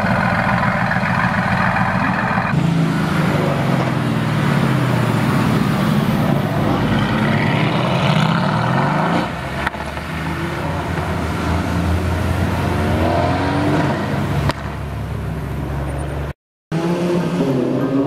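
Mercedes-AMG GT S twin-turbo V8 through a loud Per4mance aftermarket exhaust: held at a steady rev, then revved up and down repeatedly from about two and a half seconds in. After a cut the car pulls away, its revs rising as it accelerates, and the sound drops out briefly near the end.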